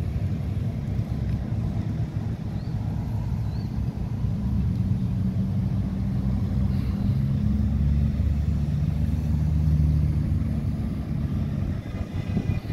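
A procession of Ford Falcon cars driving past slowly one after another, their engines running steadily. The engine sound is strongest about eight to ten seconds in.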